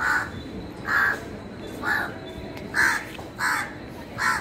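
A crow cawing over and over, six short caws about a second apart.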